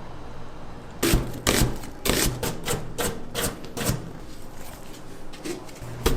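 Knife chopping on a wooden cutting board: a rapid, irregular run of sharp knocks starting about a second in, several a second.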